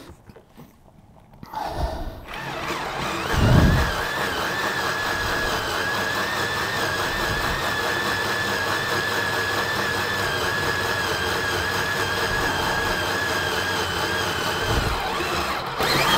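DeWalt 18V cordless combi drill with an HSS bit boring a 9mm hole through steel under heavy downward pressure: the motor starts about two seconds in and runs with a steady whine. Near the end it cuts out for a moment and comes back louder, sped up as the bit breaks through the steel.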